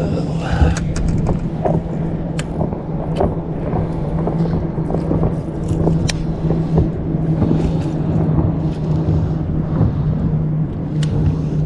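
Boat motor running at a steady pitch, with scattered light clicks and knocks over it.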